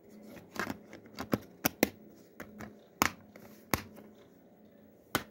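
Plastic DVD case being handled: the disc pressed onto the case's centre hub and the case snapped shut. This gives a string of about eight sharp plastic clicks and snaps, the loudest a little past the middle.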